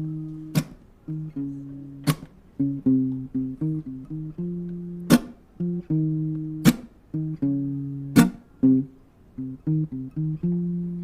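Acoustic guitar playing a short picked riff between sung lines, with sharp percussive hits about every second and a half.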